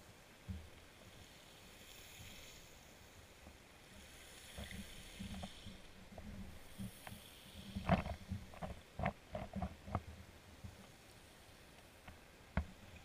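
Underwater sound through a GoPro housing lying on a pebble seabed: a low hiss with scattered short knocks and clicks, most of them bunched together about eight to ten seconds in, and one sharp knock near the end.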